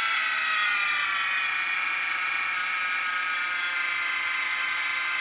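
Little Machine Shop 3990 HiTorque mini mill's 500 W spindle motor running with a whine. The whine falls in pitch over the first couple of seconds as the speed knob is turned down from about 2,300 RPM, then holds nearly steady around 1,700 RPM.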